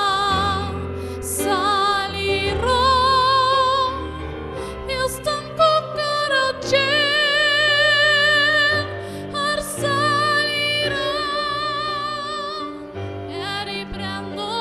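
A woman singing long held notes with a wide vibrato in a classical, operatic style, over a sustained instrumental accompaniment.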